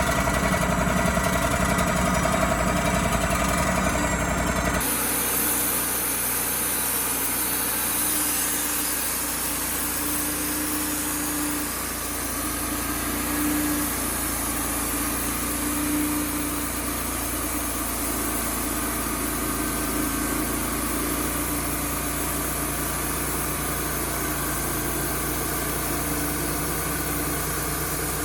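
Wood-Mizer LT35HD sawmill's engine running steadily. About five seconds in, the sound changes abruptly to a slightly quieter, even hum with a wavering tone on top.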